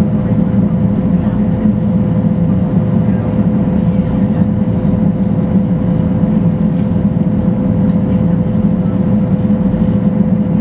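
Steady drone of a Boeing Jetfoil 929-115's gas turbines and waterjet propulsion heard from the passenger cabin underway, a constant low rumble with a steady hum-like tone running through it.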